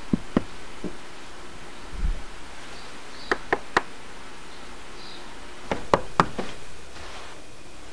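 Knocking on a wooden door: three quick knocks, then three more about two seconds later. A few lighter clicks come near the start.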